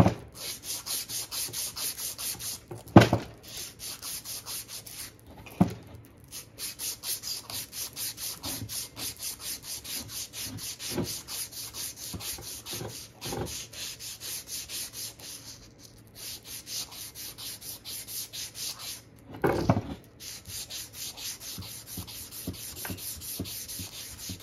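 A strip of abrasive cloth is pulled back and forth around a steel drive axle shaft, polishing its bearing and seal surfaces. It goes in quick even strokes, about five a second, with a few short pauses and a few knocks, the loudest about three seconds in.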